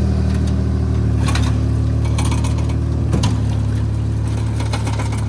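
Homemade jet jon boat's engine running at a steady speed. It eases down slightly in pitch at the start, with a few light rattling clicks over it.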